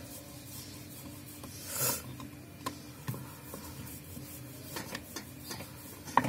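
Wooden rolling pin rolling out dough on a round wooden board (chakla): a low, even rubbing as the pin goes back and forth, with a few light knocks of wood on wood.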